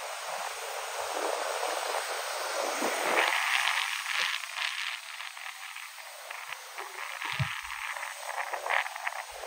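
Rough storm surf breaking on a sandy beach: a steady wash of noise with crackling, fizzing surges as waves break and foam runs up the sand, strongest a few seconds in and again near the end.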